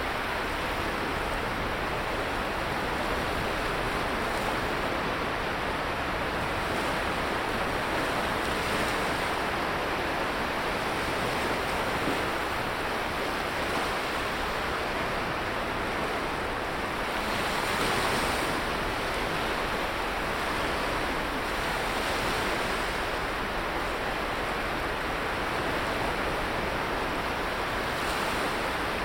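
Surf washing onto a sandy beach in a steady rush of waves, one wave swelling louder a little past the middle.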